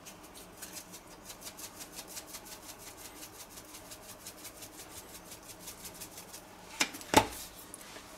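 Pepper grinder being twisted over a pot, a fast, even run of grinding clicks. Two sharp knocks come close together near the end.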